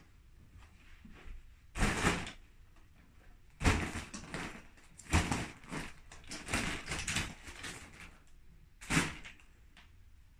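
A foil walking-dog balloon being batted and grabbed by a toddler: about five short crinkling, bumping bursts a second or two apart.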